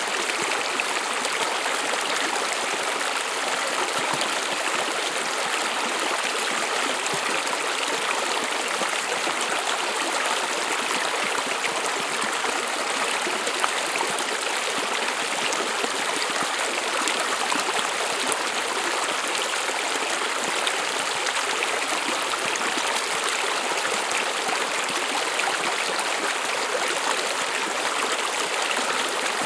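Stream water running over stones, a steady rushing babble.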